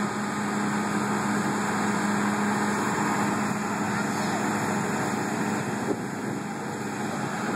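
Steady mechanical hum: a constant low drone with a broad hiss over it, unchanging in level.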